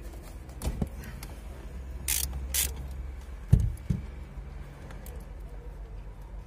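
Screwdriver and fingers clicking and scraping at the plastic horn pad of a Daewoo Nexia's steering wheel, with two short scrapes a little after two seconds in and two sharp knocks about three and a half seconds in, over a low steady hum.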